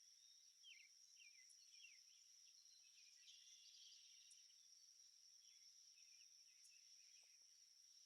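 Faint rural ambience: crickets trilling in one steady high-pitched drone, with birds chirping over it in short calls, several falling quickly in pitch in the first two seconds and others scattered through the rest.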